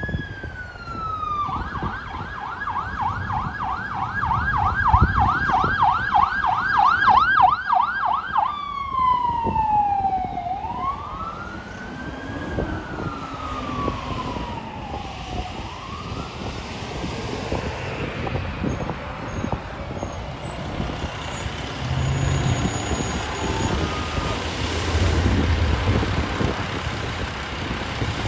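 Fire-rescue ambulance's electronic siren: a slow rising and falling wail, switching about two seconds in to a fast yelp of about three cycles a second for some seven seconds, then back to the wail, which fades away about halfway through. Afterwards there is traffic noise and the low running of a heavy truck's engine waiting at the light.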